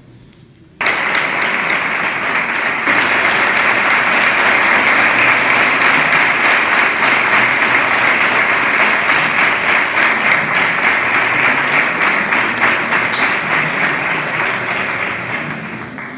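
An audience applauding: the clapping starts suddenly about a second in, holds steady, and fades away near the end.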